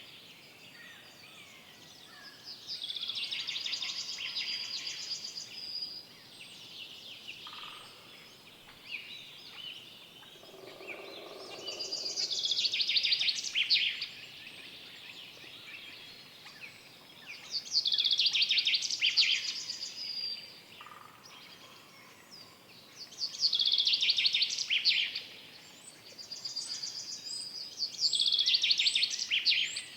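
A songbird singing in the forest: five loud, high song phrases of about two seconds each, coming every five seconds or so. Fainter chirps from other birds fill the gaps, and a lower, softer call sounds about eleven seconds in.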